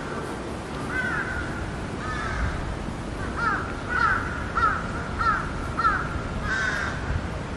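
Crow cawing repeatedly: a couple of scattered caws, then a quick run of about six caws, roughly two a second, over a steady background hiss.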